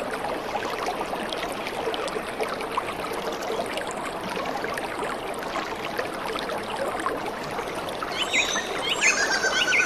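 Steady rushing water of a running stream, with a few brief high-pitched chirps near the end.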